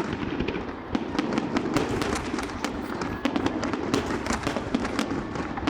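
Fireworks going off: a dense run of sharp, rapid crackles and pops with the odd heavier bang.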